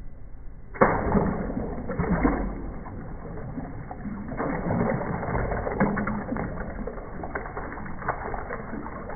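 Hot water pouring and splashing onto a flip phone, starting suddenly about a second in as a steady rush with scattered clicks.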